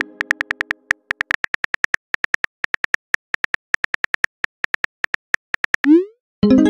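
Phone keyboard clicks: a long run of short taps as a text message is typed. About six seconds in, a short rising swoosh marks the message being sent, followed by a chime near the end. A chime's tail fades out at the start.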